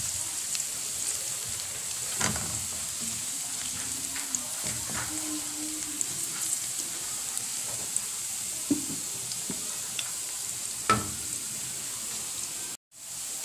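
Minced garlic sizzling in hot cooking oil, with a wooden spatula scraping and knocking against the pan as it is stirred. The sound drops out for a moment just before the end.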